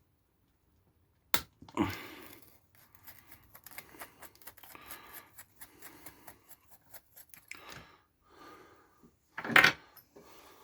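Hex wrench and small metal parts being handled while the screws of an RC truck's steering knuckle are undone: a run of small irregular clicks and rattles, with a sharp knock about a second and a half in and a louder knock near the end.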